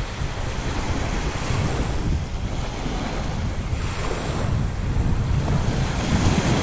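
Small waves washing and lapping onto a sandy shore, swelling up about four seconds in and again near the end, with wind buffeting the microphone.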